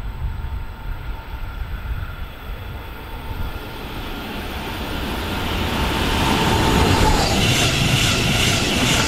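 Stadler FLIRT electric multiple unit approaching and passing close by, growing steadily louder from about four seconds in. Wheel and rail noise comes with a steady whine that drops slightly in pitch as the train goes by.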